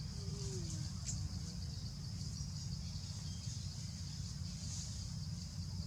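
A steady high-pitched insect chorus over a low rumble, with a faint short falling call about half a second in.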